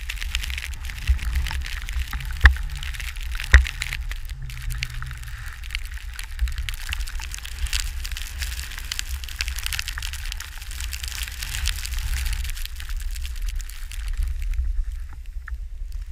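Skis hissing and crackling through deep powder snow during a downhill run, over a low rumble of wind buffeting the camera microphone. Two sharp clicks come a few seconds in, and the hiss thins out near the end.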